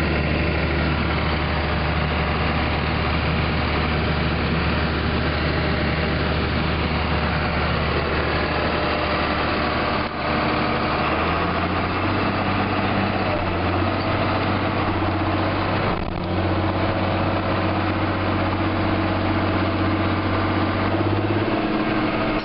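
Steady drone of heavy diesel farm machinery heard from inside the cab, first the combine during harvest. About ten seconds in the sound changes abruptly to a different, slightly higher engine hum as a tractor pulls across the field.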